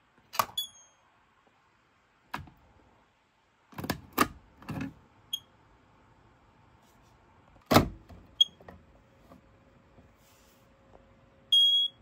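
Home smoke and carbon monoxide alarms giving short, high-pitched chirps, four in all, the last held for about half a second: the chirps the alarms make as they die. Knocks and clicks from the units being handled come between the chirps, the loudest about eight seconds in.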